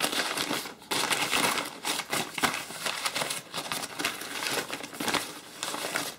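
Stiff paper wrapping crinkling and rustling as it is pulled off a wooden buttstock by hand, with a brief pause a little under a second in.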